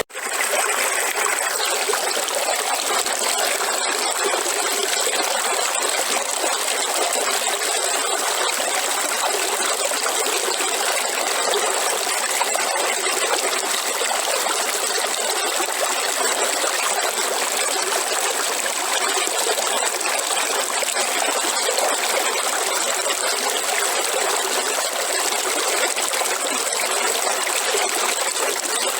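River water running steadily over rocks, a continuous rushing and trickling flow. The sound cuts out for a split second at the very start and then resumes.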